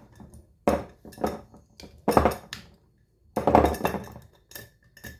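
Pantry storage jars being shifted and set down, knocking and clinking against each other and the shelf, with three louder knocks among smaller clicks.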